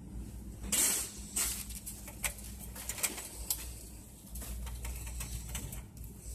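A plastic shopping cart rattling and clicking as it is pushed: a loud burst of rattling about a second in, then a run of sharp clicks for a couple of seconds, over a steady low hum.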